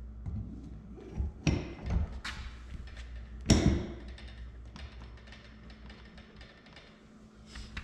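Metal boat seat pedestal post being fitted into a spring-lock bushing insert in the deck hole: a few knocks, the loudest about three and a half seconds in, then lighter clicks as it is seated.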